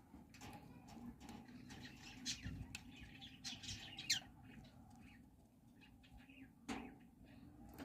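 Lovebirds chirping faintly in short high calls, with scattered small clicks and scratching; the sharpest clicks come about four seconds in and again near seven seconds.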